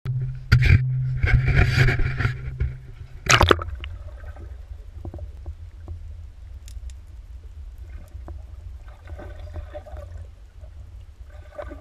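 A GoPro camera plunged into lake water: loud splashing and sloshing for the first three and a half seconds, then a steady muffled underwater rumble with a few faint knocks.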